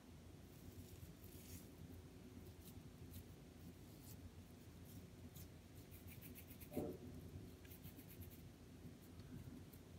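Faint scratchy rubbing and light ticks of hands rolling soft şekerpare dough into balls, over a low steady room hum. A short, louder sound comes about seven seconds in.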